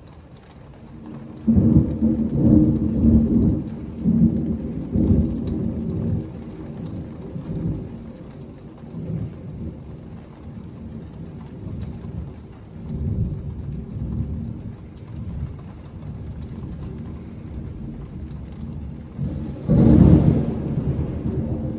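Thunder rumbling over steady heavy rain: a loud peal about a second and a half in rolls on in waves for several seconds and dies away, then a second loud clap comes near the end.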